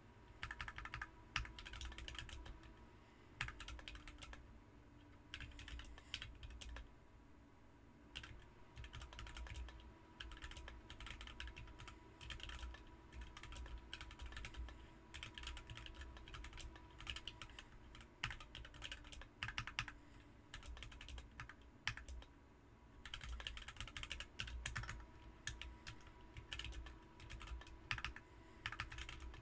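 Typing on a BM43 40% mechanical keyboard fitted with Ms Piggy switches: fast runs of keystrokes, broken by a few short pauses.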